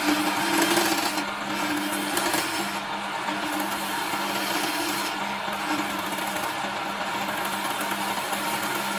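Electric wood lathe running with a steady motor hum while a hand-held chisel cuts into the spinning wooden blank, giving a continuous rough scraping and shaving noise.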